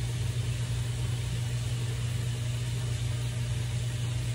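A steady low hum with a hiss over it.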